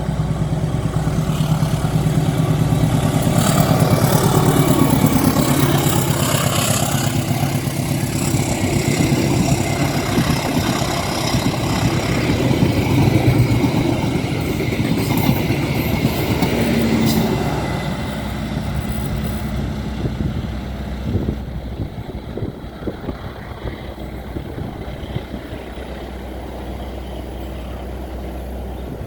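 Diesel locomotive engines running under load, loud for about the first 18 seconds and then fading somewhat, with a few sharp knocks a little after that.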